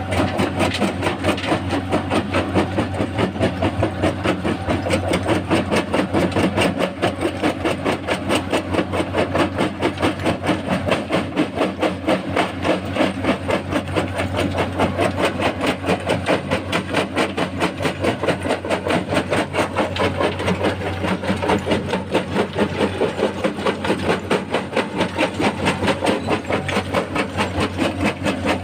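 A machine running steadily with a fast, even rhythmic clatter, about five beats a second, over a constant low hum.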